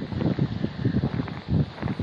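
Wind buffeting the microphone: an uneven low rumble in gusts, with no gunshot.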